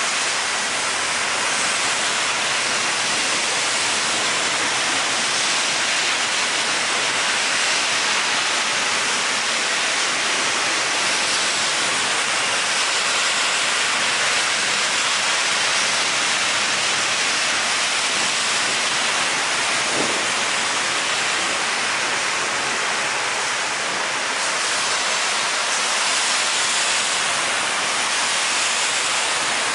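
Rain falling steadily: a continuous, even hiss.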